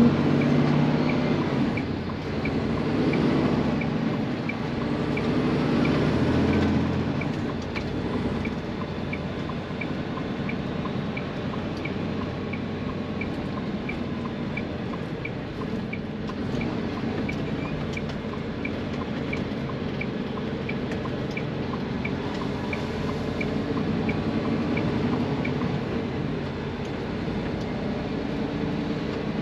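Semi-truck's diesel engine heard from inside the cab, working hardest in the first several seconds as the truck pulls away and then running steadily, over tyre hiss on a wet road. A steady high ticking, about one and a half a second, runs through it, like the cab's turn-signal indicator.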